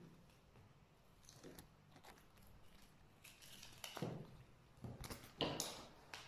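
Bengal kitten playing with a feather wand toy: soft scuffs, rustles and clicks of paws, claws and teeth on the toy and the parquet floor, with a few louder scuffs in the last two seconds.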